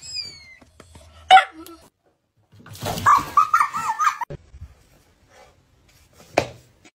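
A puppy barking in short, sharp yips, then a longer wavering cry about three seconds in and one more short yelp near the end.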